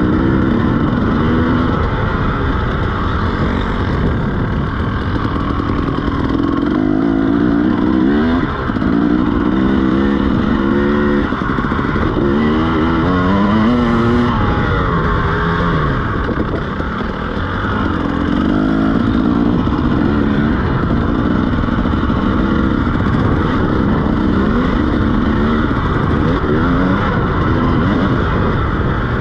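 KTM EXC 300 two-stroke dirt bike engine, fitted with a SmartCarb 2 carburettor, revving hard under load as the bike is ridden around a motocross track. The pitch climbs again and again, each run cut off and restarting lower as the rider shifts up or rolls off the throttle.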